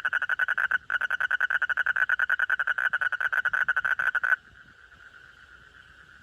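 A frog calling loudly: a fast, even train of pulses, about a dozen a second, at one pitch. It breaks off briefly just under a second in and stops about four seconds in, leaving a fainter steady call at a similar pitch.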